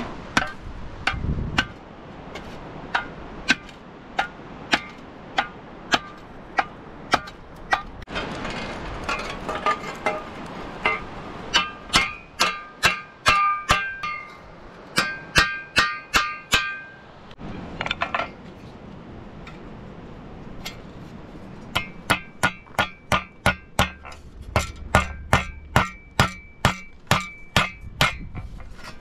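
Repeated hammer blows on a steel shovel blade resting on a rock, many strikes ringing with a metallic tone. The blows come about two a second at first, then in faster runs of three or four a second, with a lull of a few seconds between the last two runs.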